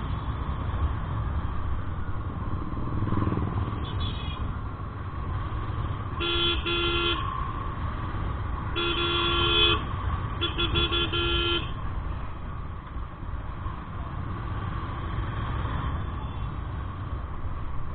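Vehicle horn honking in road traffic: a short toot, then three longer honks in a row, over a constant low rumble of engine and wind noise while riding.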